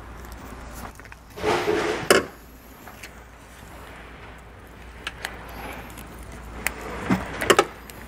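Hands working trailer wiring and a small butt connector: a burst of rustling ending in a sharp click about two seconds in, a few light clicks, then a cluster of sharp clicks near the end as a crimping tool is set on the butt connector.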